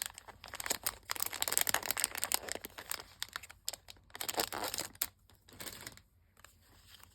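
Packaging crinkling and rustling in the hands as it is worked open, in a dense run of irregular crackles that thins out to light handling noise about six seconds in.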